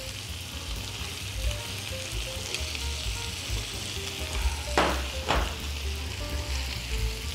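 Salt cod, onion and boiled potatoes frying in olive oil in a pan, a steady sizzle while a spatula turns them. Two short knocks come about five seconds in.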